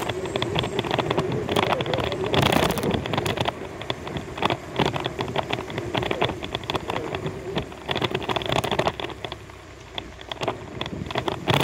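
Bicycle rolling over a rough, patched street: a steady rush of tyre and wind noise on the microphone, broken by many short irregular rattles and knocks as the bike and camera mount jolt over the bumps. It eases off a little near the end.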